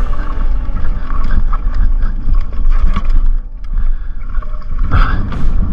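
Mountain bike rolling downhill over rough, rutted dirt: wind buffeting a helmet-mounted microphone, with tyre noise and sharp knocks and rattles from the bike over the bumps. It eases briefly about three and a half seconds in.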